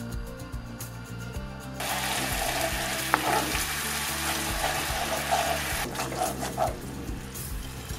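Gochujang sauce with rice syrup, garlic and oil sizzling and bubbling in a nonstick frying pan as it is reduced over low heat, stirred and scraped around the pan with a wooden spatula. The sizzling starts suddenly about two seconds in, with a sharp tap a little after three seconds, and eases near the end.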